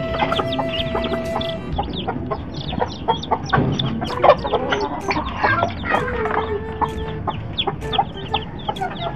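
Newly hatched gamefowl chicks peeping rapidly in high, short chirps, mixed with an adult hen's longer, lower clucking calls. The sack and cardboard bedding rustles and knocks as the chicks are picked up by hand.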